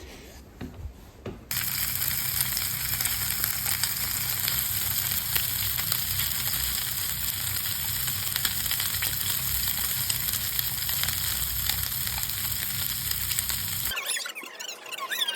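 Food sizzling and crackling in a hot frying pan, a steady hiss that starts suddenly about a second and a half in and cuts off near the end, after a few light clicks.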